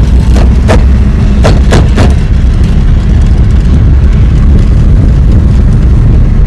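Maruti Swift's steering knocking and rattling while driving over rough road, several sharp knocks in the first two seconds over a loud, steady low road rumble inside the car. The rattle comes from a steering bolt that had lost its nut and worked loose.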